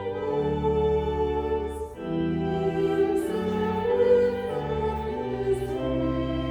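A hymn sung with organ accompaniment: held chords over deep bass notes, changing about once a second.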